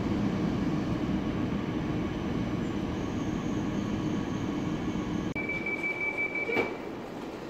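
Electric-locomotive passenger train pulling away from the platform, a steady running rumble of wheels and drive that slowly fades. About five seconds in the rumble drops off, and a thin high steady tone sounds for a second or so, cut by one sharp click.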